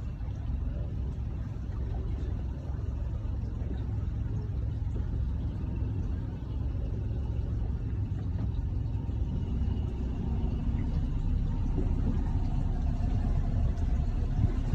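Motorboat engine running steadily underway, a low rumble that grows a little louder in the second half.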